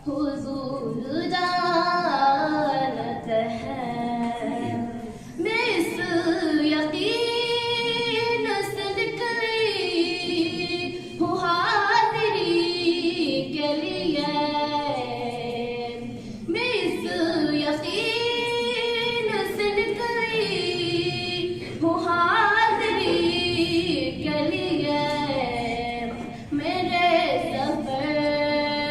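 A schoolgirl reciting a naat, an Urdu devotional poem in praise of the Prophet, sung solo and unaccompanied into a microphone. She sings long, wavering phrases of about five or six seconds each, with short pauses for breath between them.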